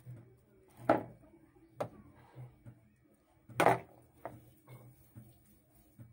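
A kitchen knife and hands working soft dough in a white bowl: a few scattered knocks and clinks, the loudest a little past halfway through.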